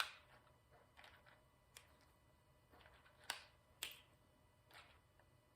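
Faint, scattered light clicks and taps of small plastic pieces: diamond painting drills and their storage containers being handled and moved, about seven clicks spread over a few seconds.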